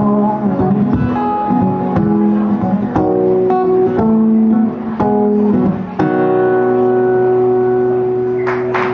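Acoustic guitar strumming the closing chords of a song, a chord about every second, then a final chord held and left ringing from about six seconds in. Clapping begins near the end.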